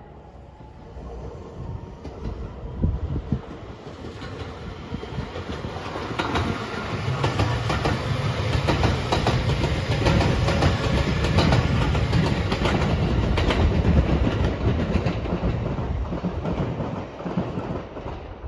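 JR West 227 series electric multiple unit passing by, its wheels clattering over the rail joints. The sound builds up, peaks with rapid clicks in the middle as the cars go by, and fades near the end.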